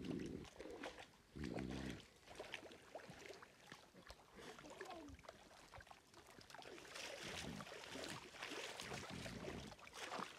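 Water sloshing and splashing as people wade in a shallow pond, with water poured from a bucket over an animal being washed; the splashing grows busier in the second half. A short call sounds about a second and a half in.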